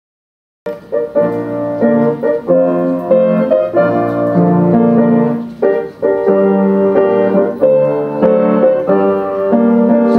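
Instrumental piano music starts after a brief silence: a melody played over chords.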